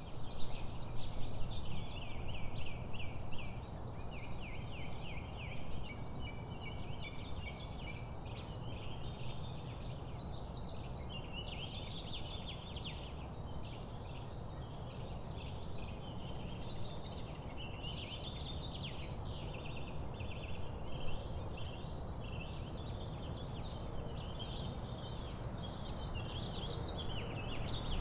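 Many small birds singing and calling at once, a dense chorus of quick chirps and trills, busiest in the first few seconds, over a low steady rumble.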